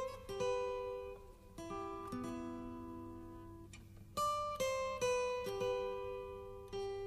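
Background music: a slow melody picked note by note on a guitar, each note ringing and fading before the next.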